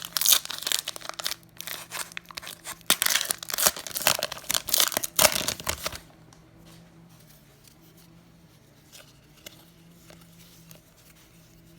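Plastic foil wrapper of a trading-card pack being torn open and crinkled: loud rustling and tearing for about six seconds, then quiet handling of the cards over a faint steady low hum.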